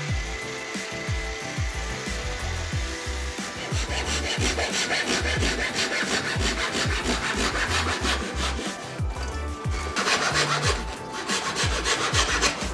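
A bench disc sander runs at first. From about four seconds in, a hand saw cuts through a laminated walnut strip in quick back-and-forth strokes, over background music with a steady beat.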